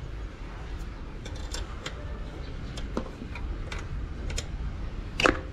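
Small metallic clicks and ticks of an open-end spanner working the nut on a number-plate bolt as it is tightened, irregular and scattered, with one louder clink about five seconds in.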